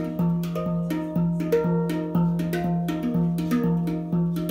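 A steel handpan (hang drum) played with the hands in a steady rhythm of about two strikes a second, a low ringing note sounding under shifting higher notes.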